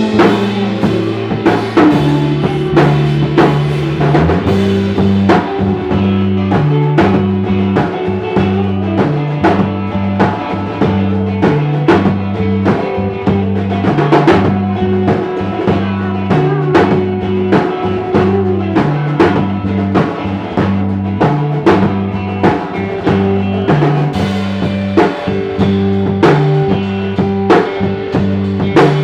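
Live rock band playing: a drum kit keeps a steady beat under a repeating bass line and electric guitars.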